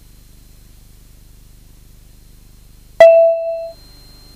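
Low, steady hum of the Cessna 172's engine at takeoff power. About three seconds in comes a single sharp ding: a clear ringing tone that fades within a second.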